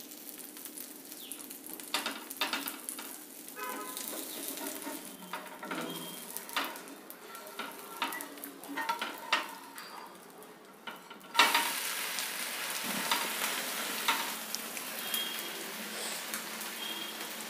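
A metal spatula scraping and tapping on a hot dosa tawa while an onion dosa fries with a light sizzle. About eleven seconds in, the dosa is flipped onto its onion-topped side and the sizzling suddenly gets louder and stays steady as the onions start to roast.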